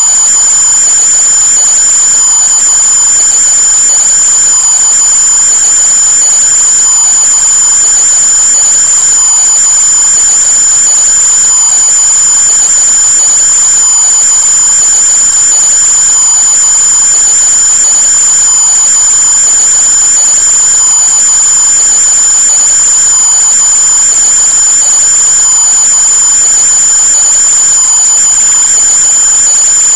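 A loud, steady high-pitched whine over hiss, holding one pitch without change.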